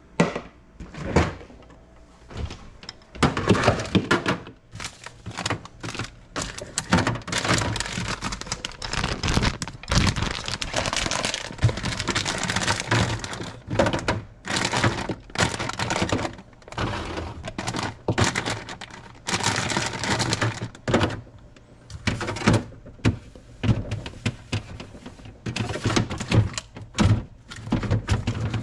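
Objects being handled and set down in a steady run of knocks, thunks and clicks, with rustling and crinkling between them.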